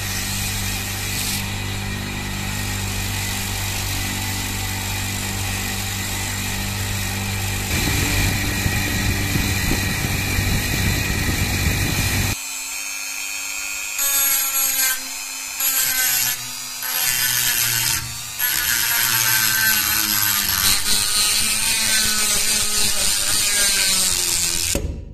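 Handheld rotary tool with a small abrasive grinding stone, running at speed and grinding rust and corrosion off an old pocket knife blade. For about the first half the motor runs steadily; after an abrupt change near the middle, the grinding breaks off and resumes several times, then runs on.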